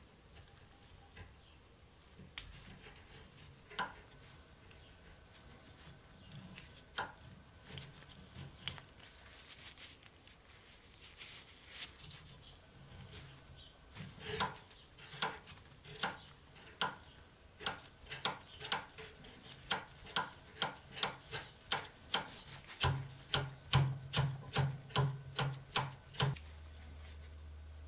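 Rusty antique pocket revolver's action clicking as it is worked by hand: a series of sharp metal clicks, sparse at first, then about two a second and speeding up to about three a second before stopping. A low hum comes in near the end.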